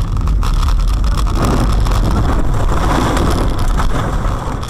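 Car in motion, heard from inside, with heavy low road rumble and wind noise. About a second and a half in, it turns into a rough rushing noise as the car goes off the road into snow and rolls over. The rumble cuts off near the end, when the car comes to rest.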